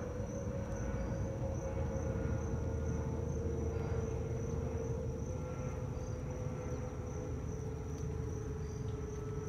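Twin-engine jet airliner passing high overhead: a low rumble with a steady engine tone that sinks slowly in pitch. Insects chirp faintly in a steady pulsing rhythm behind it.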